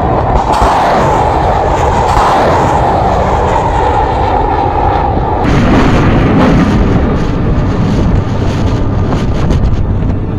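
Missile rocket motors roaring as missiles climb away after launch from a four-tube launcher. About five seconds in, the roar drops to a lower, crackling rumble.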